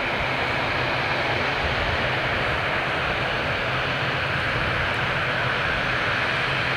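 Airbus A220's twin Pratt & Whitney PW1500G geared turbofan engines running with a steady howl.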